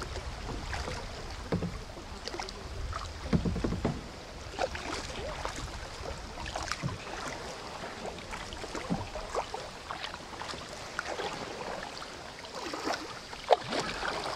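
Kayak paddling on a river: water splashing and dripping from the paddle with small scattered splashes, and a low rumble in the first few seconds. One sharp knock near the end is the loudest sound.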